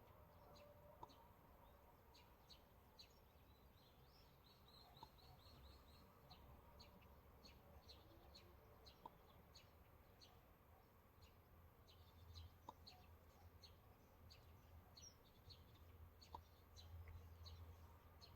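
Faint small-bird chirps, short high notes every half second or so, with a quick trill of repeated notes about four seconds in, over a low steady rumble.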